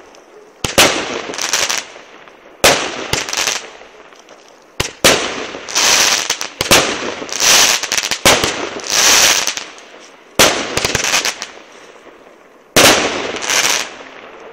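Aerial fireworks shells bursting one after another, about eight in all. Each sudden bang is followed by a second or more of crackling, and the bursts come thickest in the middle.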